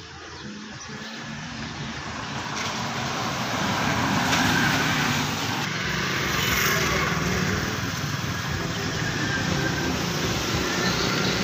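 A motor vehicle's engine running close by, growing louder over the first four seconds or so and then holding steady.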